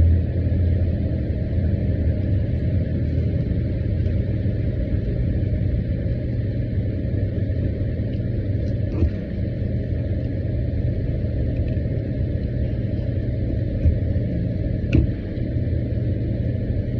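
Steady low rumble, with two brief clicks, one about nine seconds in and one about fifteen seconds in.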